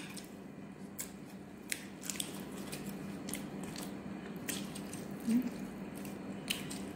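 Eating by hand: quiet chewing and wet mouth sounds, with scattered small clicks and squishes of fingers picking fish flesh from the bones and pressing rice.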